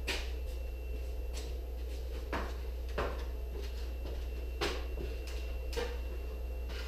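Irregular knocks and clicks, about seven in all, from metal stove parts being handled and worked loose, over a steady low hum.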